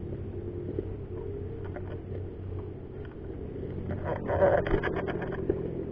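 Low rumbling handling noise from a camera mounted on an airsoft sniper rifle as it is carried, with a louder stretch of rustling and crackling about four seconds in.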